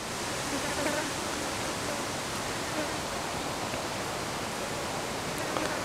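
Steady, even rushing noise with no distinct events in it, swelling in over the first half-second and then holding level.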